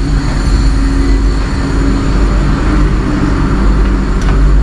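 Steady low mechanical rumble and hum of the water taxi's onboard machinery, mixed with wind buffeting the microphone on the open deck.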